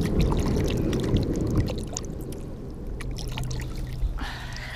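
Water sloshing and trickling at the edge of the water, loudest in the first couple of seconds and then fading, with a few light knocks. A brief breathy voice sound comes near the end.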